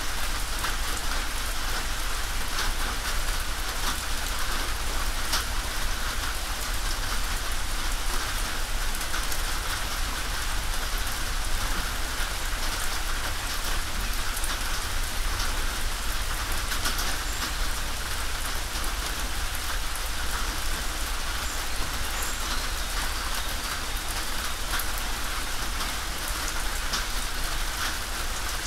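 Steady rain falling on a tin roof: a dense, even patter with individual drops ticking out sharply here and there.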